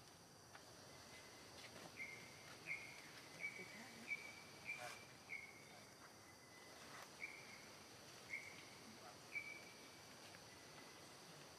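Forest ambience: a steady high insect drone, with a run of about ten short, high chirps that each dip slightly in pitch, coming about one or two a second in the middle of the stretch.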